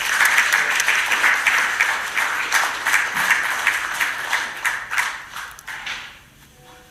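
Audience applauding, many hands clapping at once, dying away about six seconds in.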